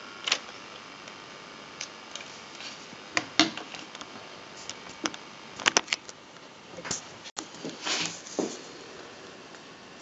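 Handling noise: irregular clicks and knocks as the filming camera is moved about and bumped, over a faint steady hiss. The knocks come in small clusters, the loudest about three and a half seconds in and again near six seconds.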